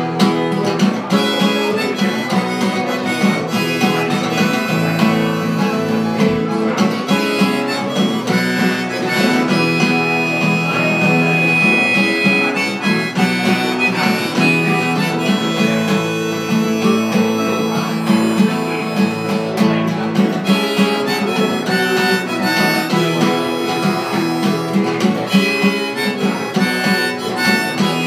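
Harmonica played over acoustic guitar as an instrumental break in a song, holding one high note for a couple of seconds about ten seconds in.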